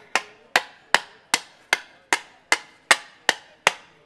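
A mallet striking an aluminium panel held on an anvil block, about eleven sharp knocks in a steady rhythm of roughly two and a half blows a second. The blows are shrinking puckered aluminium back into shape.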